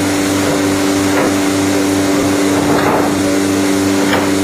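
Vacuum membrane press running with a loud, steady hum and a pulsing low throb, typical of its vacuum pump, with a few light knocks from wooden panels being handled on the press table.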